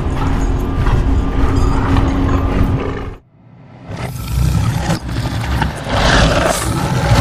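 The Hulk roaring and straining, as film sound over a dramatic score. It drops away briefly about three seconds in, then comes back as loud as before.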